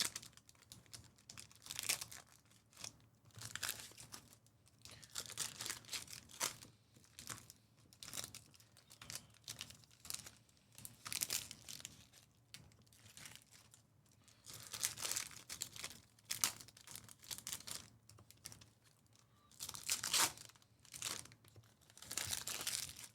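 Packs of 2024 Panini Donruss Baseball Hobby cards being ripped open, the wrappers tearing and crinkling in repeated short, uneven bursts, a few of them louder in the second half.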